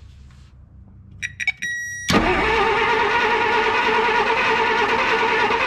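A few sharp clicks as the starter wires are touched, then, about two seconds in, the starter of a 1953 Plymouth Cranbrook's flathead six-cylinder, fed 12 volts, cranks the engine. It spins up quickly to a steady whir and the engine does not catch.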